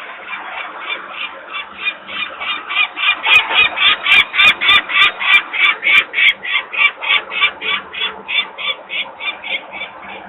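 Adult peregrine falcon giving its harsh alarm call, a rapid series of short 'kak' notes about three or four a second, loudest in the middle. It is agitated by human disturbance near the nest.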